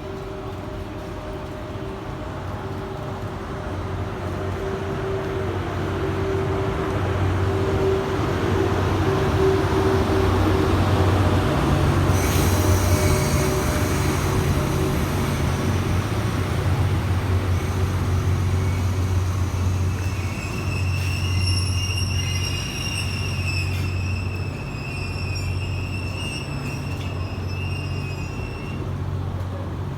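EF81 electric locomotive and E26 series passenger cars running slowly into the station with a steady low hum, louder as the train passes about midway. From about two-thirds of the way in, a high, wavering brake squeal comes from the train as it slows to a stop.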